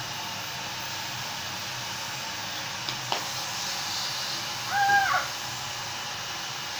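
Vacuum cleaner running steadily, sucking the air out of a plastic garbage bag through its hose. About five seconds in, a short, level hooting tone sounds over it, and there are a couple of small clicks a little before.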